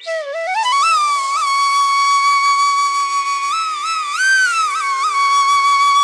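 Background music: a single melody line that glides upward over the first second, then holds one long high note with small ornaments and a brief rise near the middle, over a steady drone.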